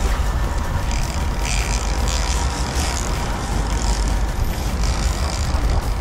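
Boat engine running under way, a steady low rumble, with wind noise on the microphone and water rushing past the hull.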